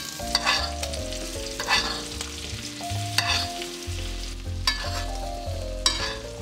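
Scallops frying in foaming curry butter in a non-stick pan, sizzling steadily, while a utensil moves and turns them in the butter with a sharper scrape or spit every second or so.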